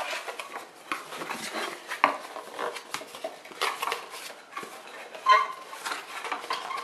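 Cardboard box being unfolded and refolded by hand: irregular crackling, creasing and rustling of the cardboard, with scattered light taps and scrapes.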